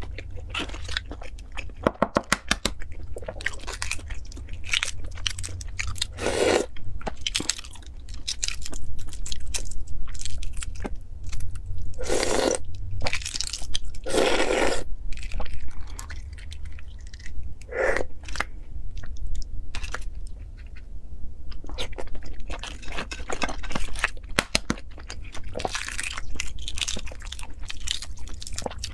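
Close-miked eating sounds: eggshells cracking and crackling as they are picked off by hand, with chewing of the peeled eggs in between.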